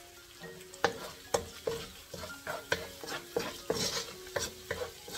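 Wooden spatula stirring and scraping chopped shallots, garlic and sausage frying in oil in a granite-coated wok, over a light sizzle. The stirring strokes start about a second in and come two or three times a second.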